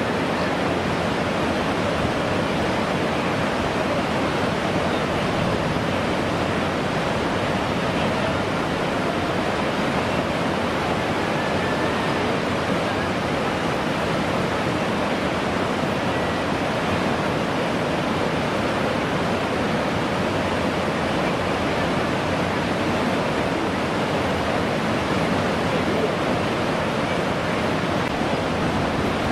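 Steady rush of whitewater rapids churning through a canoe slalom course.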